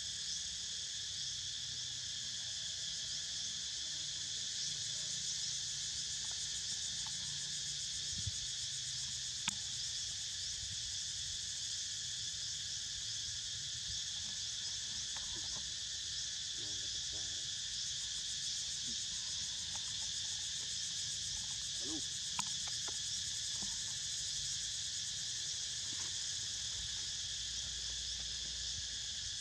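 Steady, high-pitched chorus of insects buzzing continuously, with a couple of faint ticks.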